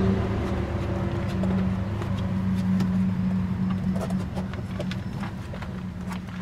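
A steady low engine hum, fading slightly, with light clicks and scratches of puppies' claws on the concrete block and doghouse floor in the second half.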